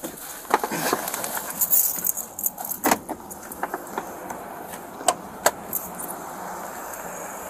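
Keys and a police officer's duty gear jangling and clicking, with rustling, as he climbs out of the patrol car and walks. There is a steady hum underneath, and a few sharp clicks stand out about three seconds and five seconds in.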